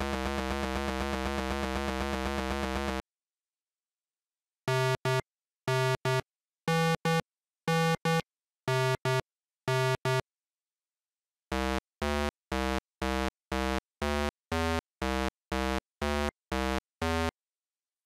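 Synthesized chiptune-style sound effects. A steady electronic buzz lasts about three seconds and cuts off. After a pause come pairs of short beeps, about one pair a second, and then a run of evenly spaced single beeps, about two a second.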